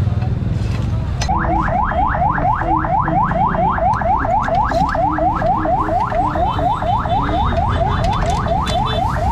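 An electronic alarm, like a car alarm, starts about a second in: a rapid rising chirp repeated about five times a second, over a steady low rumble of street traffic.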